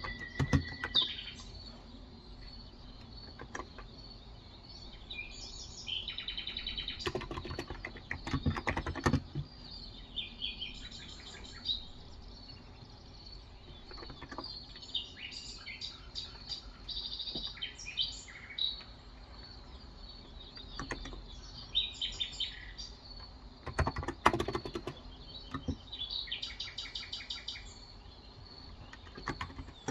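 Birds chirping and calling outside, on and off throughout, with bursts of typing on a Cox Endeavor tenkeyless keyboard with 35 g electrostatic capacitive switches; the typing is loudest about seven to nine seconds in and again around twenty-four seconds in.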